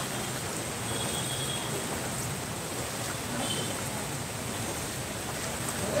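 Steady hiss of rain and shallow floodwater on a flooded town street, with traffic noise mixed in.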